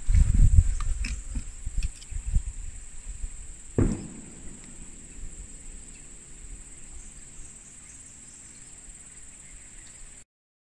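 Steady high-pitched drone of insects, with low rumble and irregular thumps over the first four seconds ending in a sharp knock. The insect drone then carries on alone until the sound cuts off suddenly near the end.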